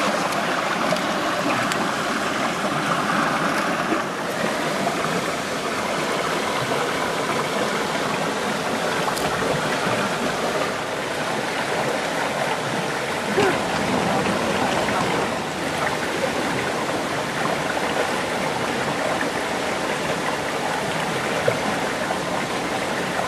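Water of a small spring-fed river flowing steadily.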